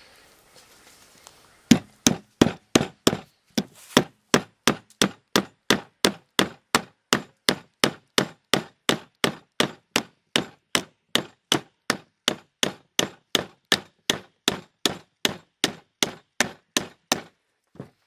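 Thrunite Archer 2A flashlight used as a hammer, striking 12-penny nails into a pressure-treated 2x4: about three dozen sharp metal-on-metal blows, a little over two a second, with a short pause after the first few.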